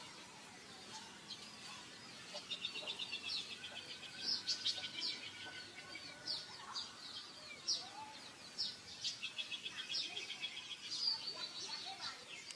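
Small birds chirping, with quick high-pitched notes and rapid trills, busiest from about two seconds in.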